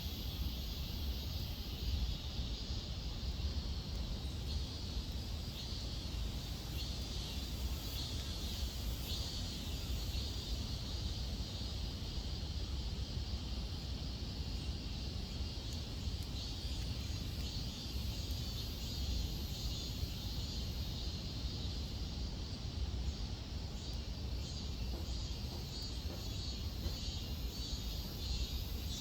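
Steady high shrill buzzing of cicadas, flickering and pulsing without a break, over a steady low rumble.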